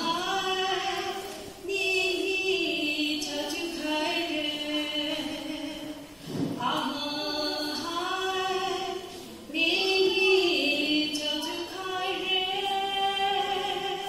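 A woman singing solo and unaccompanied, holding long notes in phrases with brief pauses for breath between them.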